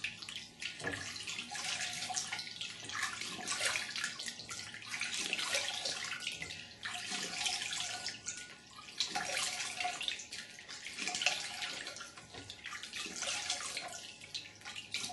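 Water splashing and dripping as hands scoop water from a glass bowl onto the face and back, in repeated rinses about once a second.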